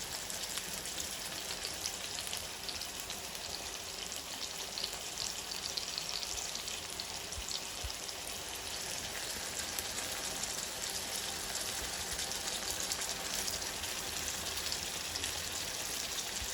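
Aubergine and tomato slices frying in hot oil in a pan: a steady sizzling hiss with many small crackles and spits.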